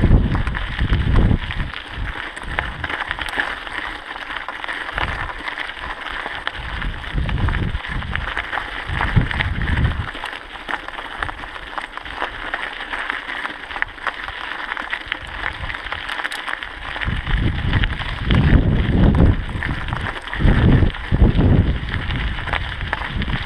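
Mountain bike rolling over a loose gravel track: a steady crunch and rattle of tyres on stones and the bike jolting, with gusts of wind buffeting the microphone, strongest at the start and for several seconds near the end.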